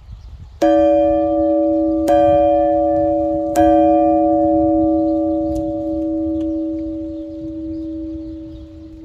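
Old chilled cast-iron bell struck three times, about a second and a half apart, each strike ringing on with a deep steady hum. It is then left to ring out, fading slowly.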